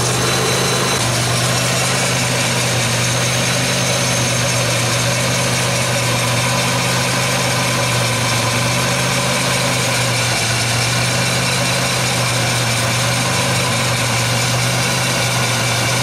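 2003 Pontiac Grand Am GT's 3.4-litre V6 running in gear with the front wheels off, spinning a bare front hub and brake rotor: a steady hum with no change in pitch. The car is being run this way to trace a grinding from a worn front wheel bearing.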